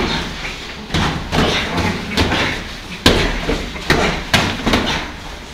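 Padded sparring gloves striking helmets and chest protectors in full-contact sparring: a string of irregularly spaced thuds.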